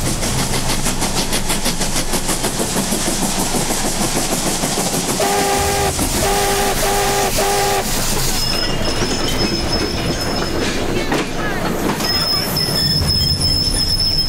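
Steam locomotive running with a rhythmic beat of about three strokes a second. About five seconds in, its whistle sounds four short blasts. The brakes then go on hard and the wheels screech on the rails in a high, steady squeal, twice over.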